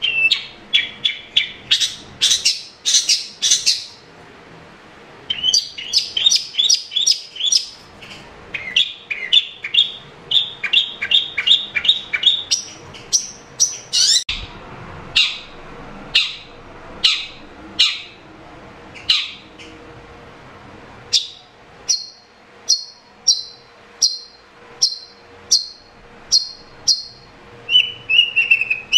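Long-tailed shrike singing: phrases of quick, sharp chattering notes broken by short pauses, then a run of evenly spaced high calls at about two a second in the second half.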